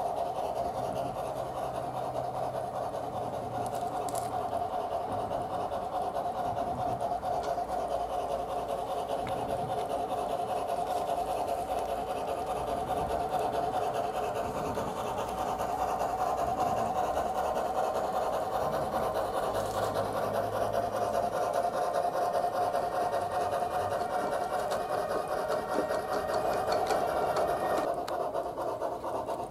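Bachmann Climax G-scale model geared steam locomotive running, its Soundtraxx Tsunami sound decoder playing rapid, steady steam chuffing through the model's small onboard speaker.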